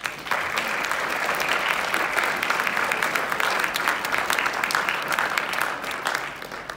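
Audience applauding. The clapping starts about a third of a second in, holds steady, and tapers off near the end.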